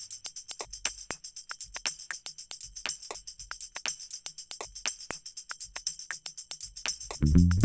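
Background music: a break of fast, jingling hand percussion on its own, several strokes a second. Bass and the rest of the band come back in near the end.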